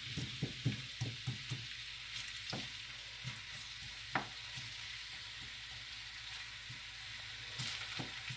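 Diced onion sizzling in hot oil in a frying pan, stirred with a wooden spatula that knocks against the pan: a quick run of taps in the first two seconds, then single knocks now and then over the steady sizzle.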